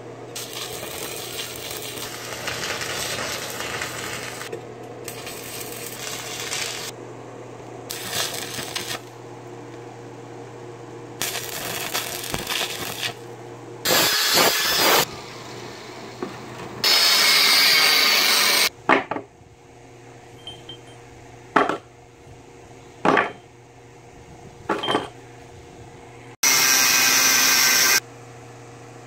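Steel fabrication: an irregular stretch of arc-welding crackle on steel tube, then an angle grinder with a cutoff disc cutting steel in three loud bursts of a second or two each, with a few sharp metal knocks between the later cuts. A steady low hum runs underneath.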